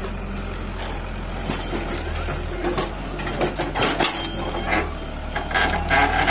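Heavy excavator or crane running with a steady low engine hum, overlaid by metallic clanks, clicks and squeaks from its working parts, busiest about three to five seconds in.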